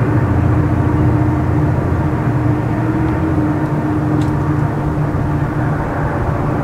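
Chihuahua al Pacífico (Chepe) passenger train running steadily: the constant drone of its diesel locomotive, with a steady hum over a low rumble.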